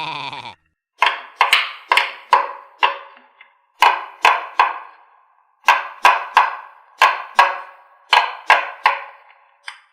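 A run of short struck notes, each ringing briefly and fading, about two strokes a second in three groups separated by short pauses, like a wood block or small xylophone.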